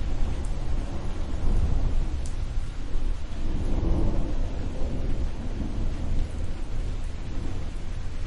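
Thunder rumbling low and continuously over steady rain, the rumble swelling about four seconds in and then easing off.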